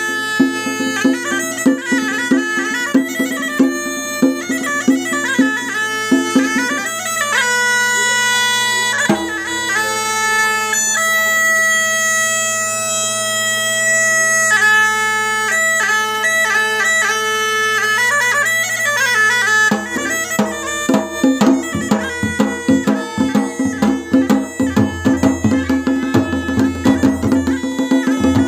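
Masakbeen, the Kumauni bagpipe, playing a melody over a steady drone, with dhol and damau drums beating along. The drumming drops back in the middle, where the pipe holds long notes, and comes in strongly again for the last third.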